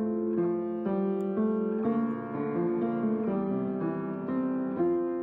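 Solo piano playing a slow offertory melody, chords changing about every half second.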